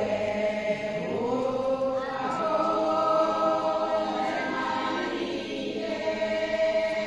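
Women's church choir singing a praise song in several voice parts, with long held notes.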